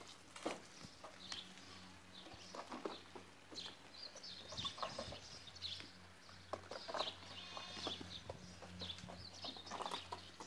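Goat kids scuffling and butting heads, their hooves scuffing and knocking on the dirt, amid frequent short high bird chirps. A faint low steady hum runs underneath.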